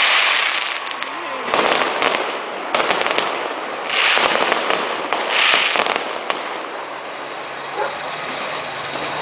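Fireworks going off: sharp bangs at about 1.5 and 3 seconds in, then two loud swells of crackling hiss around the middle, over a steady din of further bursts.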